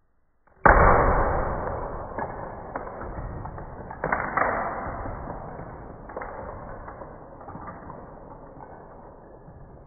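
Explosion-style blast for the Lego spaceship's crash: a sudden loud bang about half a second in, then a rumbling noise that dies away slowly, with a second, smaller blast about four seconds in.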